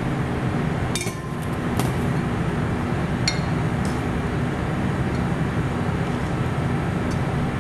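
A metal spoon clinks a few times against a Pyrex glass measuring cup and a steel bowl while scooping flour, over a steady low hum.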